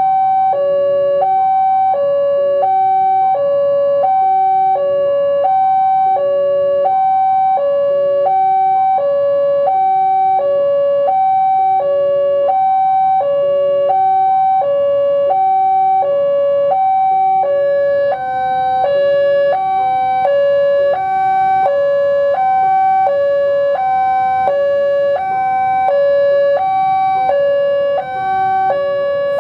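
Railway level-crossing warning alarm sounding without a break: an electronic chime that steps back and forth between a high and a low tone in an even, repeating pattern, signalling that the crossing is closed.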